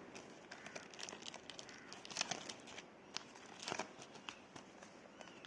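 Faint crinkling of packaging being handled, with scattered light clicks and taps, typical of a small product box being opened.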